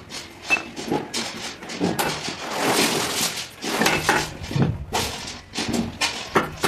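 Hammer striking a broad chisel cut into a wooden batten: a run of irregular sharp knocks, with the blade chipping into the wood.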